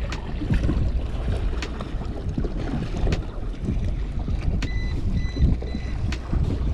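Wind buffeting the microphone and water lapping against a fishing kayak's hull, with sharp clicks about every second and a half and a short run of high beeps near the end.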